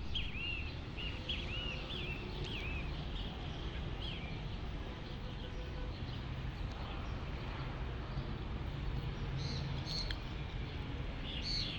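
Small birds chirping in short arched calls, several in the first few seconds and a few higher ones near the end, over a steady low outdoor rumble.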